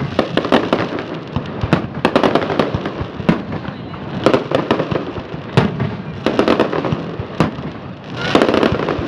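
Fireworks display: a continuous run of sharp bangs and crackling, with a louder single report every second or two and a dense burst of crackle near the end.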